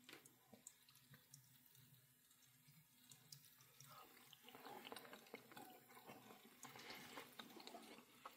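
Near silence: faint wet clicks and smacks of someone chewing a bite of beef patty, a little more active in the second half.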